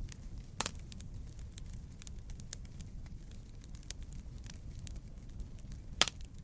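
Wood fire crackling in a fireplace: a steady low rumble of burning with many small snaps, and two louder pops, one about half a second in and one near the end.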